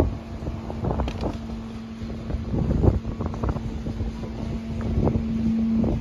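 Wind buffeting the microphone in gusts, over a steady low hum that holds one pitch and grows a little louder near the end.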